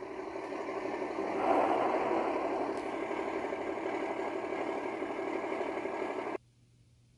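A vehicle engine sound effect running steadily, getting louder about a second and a half in, then cutting off abruptly near the end.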